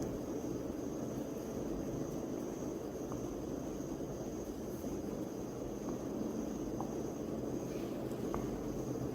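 Steady background noise, a constant low rushing hum with a thin high whine above it, and no distinct events.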